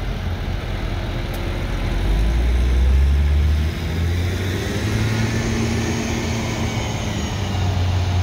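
Several large farm tractors' diesel engines running together with a low, steady drone. The drone swells about two seconds in and eases back near four seconds as an engine works harder.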